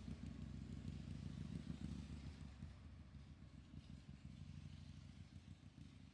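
Motorcycle engine running with a low, fast throb, growing steadily fainter.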